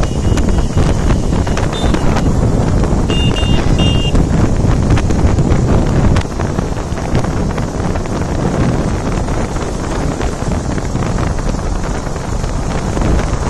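Wind buffeting the microphone of a moving motorcycle, over road and engine noise. A few short high beeps sound about three seconds in.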